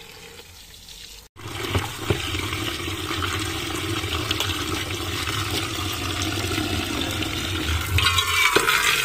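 Tap water pouring into a metal pot of bathua (lamb's quarters) leaves while hands swish and rinse the leaves. The sound is quieter for the first second, then after a brief break runs louder and steady. Near the end the stream falls into an almost empty metal pot, giving a brighter, harsher splash.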